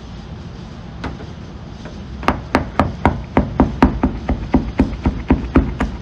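Mitsubishi Outlander's hood panel being tapped by hand: one knock about a second in, then a quick run of about a dozen sharp taps, roughly four a second, from about two seconds in.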